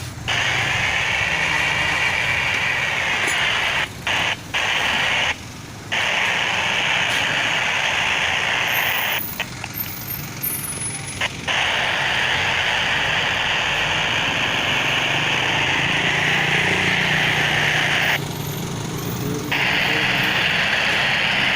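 Two-way radio static: a steady hiss that cuts out abruptly several times as the squelch closes and reopens.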